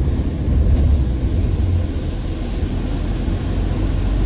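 Steady low rumble of a moving bus's engine and road noise, heard from inside the bus.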